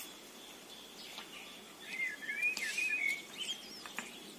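Small birds chirping: a burst of short, wavering, high twittering calls about two seconds in, over a faint outdoor background.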